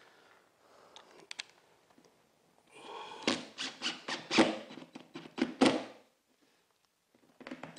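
Cordless drill driving a screw into plywood underlayment in short bursts, about three a second, to sink the head just below the surface.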